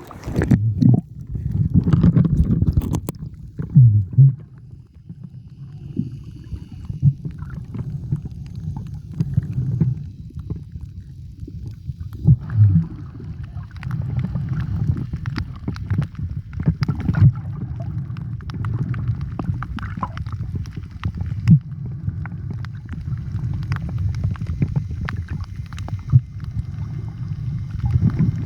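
Muffled water noise heard through a camera held underwater: a steady low rumble of moving water with scattered short clicks and knocks.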